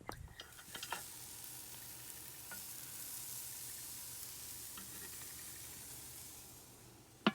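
Hot dogs sizzling as they cook: a steady frying hiss that swells in and then fades out near the end.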